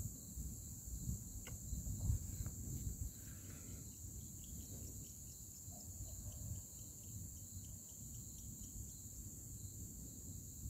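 Steady high chirring of crickets at night, with faint quick insect ticks in the second half. A low rumble runs underneath, stronger in the first few seconds and then easing.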